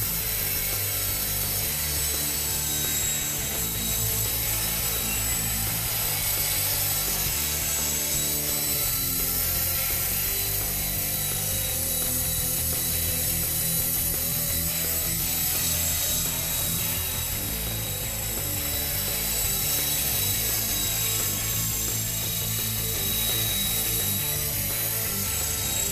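Esky Honey Bee V2 radio-controlled electric helicopter in flight: the steady high whine of its small electric motor and gear train with the whir of the rotors, wavering slightly with the throttle.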